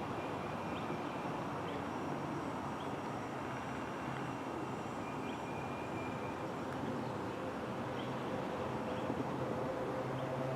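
Steady outdoor background noise with a low, even hum through it, and a few short faint high chirps.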